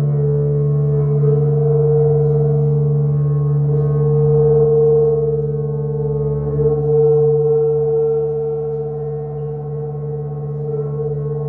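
A steady, unbroken drone of several held tones, one low and one higher and brighter, from an upright double bass played through an amplifier, swelling slightly in the middle.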